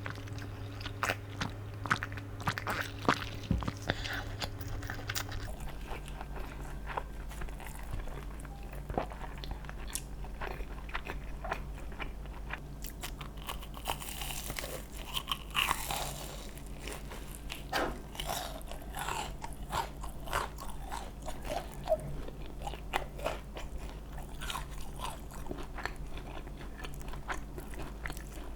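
Close-miked eating: crunchy bites and chewing with many short crackling clicks, over a low steady hum.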